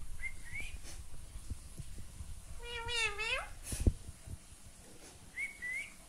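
Indian ringneck parakeets calling: a short rising chirp near the start and again near the end, and between them one longer wavering call that dips and then rises in pitch. A soft knock follows the long call.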